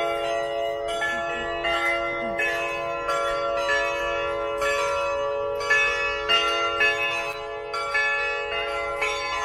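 Church bells ringing before Mass: a new stroke about every two-thirds of a second, with the pitch changing from stroke to stroke and each tone ringing on under the next.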